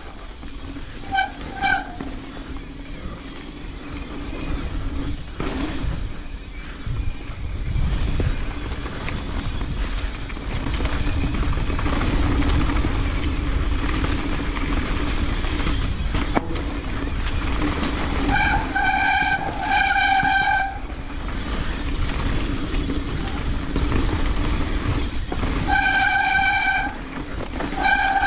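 Mountain bike brakes squealing loudly at one steady pitch whenever they are applied: two short squeals about a second in, longer ones about 18 to 21 seconds in and again near the end. The brakes are messed up, squealing loud enough to warn others on the trail. Under it runs a constant rumble of tyres and wind from riding.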